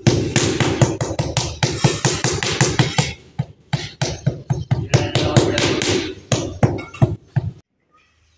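Rubber mallet tapping a ceramic floor tile down into its wet mortar bed to seat and level it: rapid, repeated taps, several a second, that stop suddenly shortly before the end.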